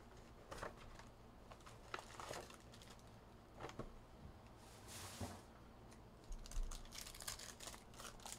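Faint handling noises: scattered light clicks and taps, a short papery rustle about five seconds in, and a quick run of clicks near the end.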